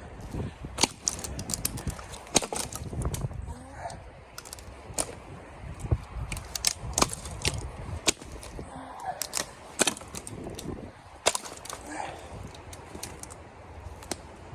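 Irregular sharp snaps and knocks, a few each second, over a low rumble.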